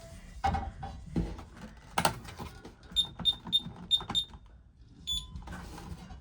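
Honeywell 6150 alarm keypad's piezo sounder giving about five quick high beeps, then one more a second later, as the keypad comes on after the Vista 20P panel is powered up. Before the beeps come a few knocks from handling.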